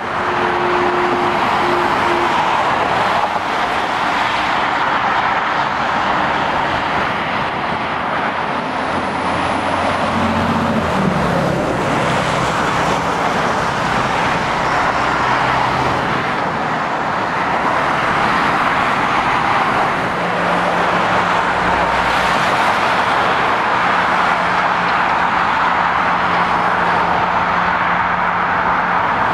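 Steady traffic noise from cars and heavy lorries on a dual carriageway, mainly tyre noise. A lorry's engine hum comes up about two-thirds of the way in.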